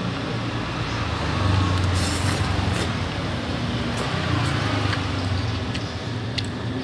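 Low engine rumble of passing road traffic, swelling about a second and a half in, with a few light clinks of a spoon and fork against a ceramic bowl.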